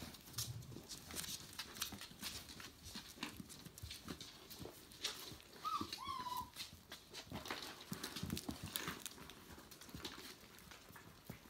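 Five-week-old Tamaskan puppies' claws clicking on a wooden floor as they scamper and tussle over a toy, with a brief high whimper from one puppy about six seconds in.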